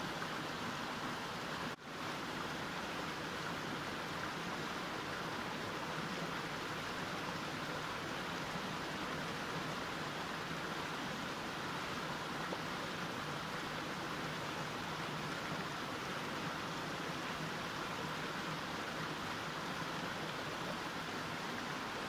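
Mountain stream flowing, a steady even rush of water, with a brief dropout about two seconds in.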